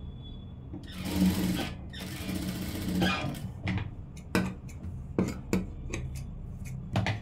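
JACK industrial lockstitch sewing machine stitching in two short runs about a second in, then a string of sharp clicks as scissors snip the thread ends, over a steady low hum.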